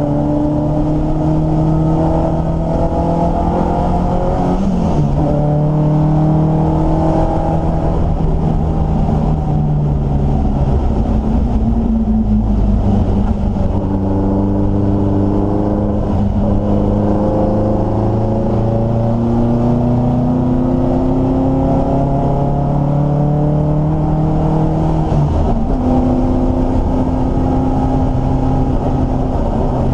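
Triumph Dolomite Sprint race car's 16-valve slant-four engine heard from inside the cabin under hard driving: the engine note climbs steadily as it pulls, then jumps in pitch at gear changes about five, twelve and twenty-five seconds in.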